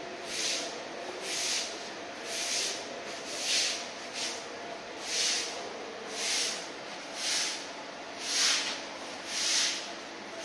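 Cow eating from a plastic feed tub, breathing out into the feed as it eats: a soft hissing puff about once a second. A faint steady hum runs underneath.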